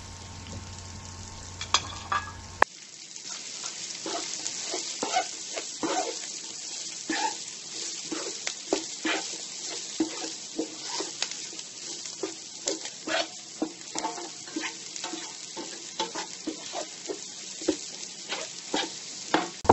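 Carrot strips, onion and garlic frying in a pan, sizzling steadily, with a spatula scraping and tapping against the pan as they are stirred. The sizzle comes in about three seconds in.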